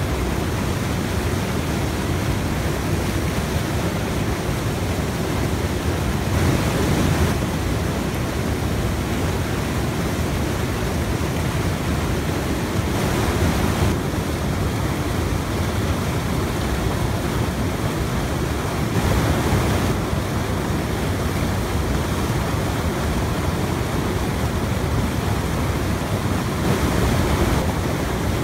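Fast, high river water pouring over a rock ledge and churning into white rapids: a steady, loud rushing noise that swells briefly a few times.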